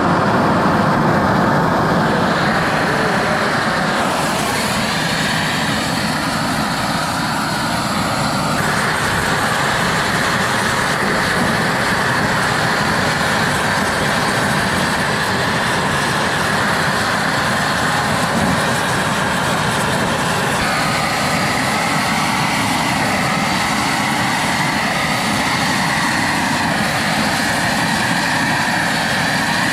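Pressure-washer-fed steam gun spraying: a loud, steady hissing rush that starts abruptly, its tone shifting a few times as the spray moves.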